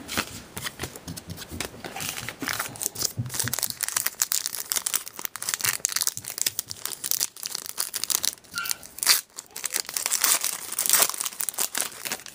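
Plastic trading-card pack wrapper being torn open and crinkled by hand, an irregular run of crackling rustles, loudest near the end.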